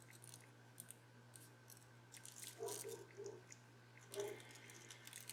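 Faint scattered clicks and soft rustles of hands working small paper flower pieces together, a little busier around three and four seconds in.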